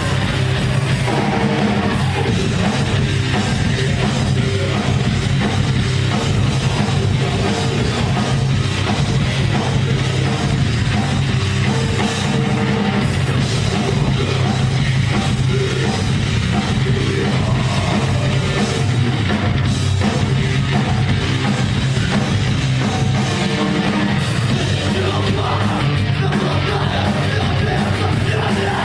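Heavy metal music: a rock band with electric guitars and drum kit playing loud and without a break.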